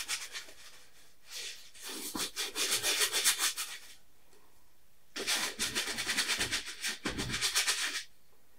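Paintbrush scrubbing oil paint onto a stretched canvas in rapid back-and-forth strokes: two bouts of a few seconds each, with a short pause between them.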